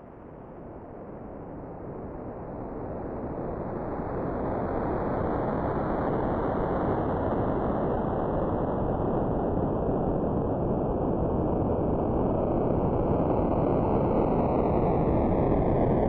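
Electronic rushing noise that swells up over the first five seconds or so and then holds. A slow jet-like flanger sweep slides gradually downward in pitch and begins to drop faster right at the end.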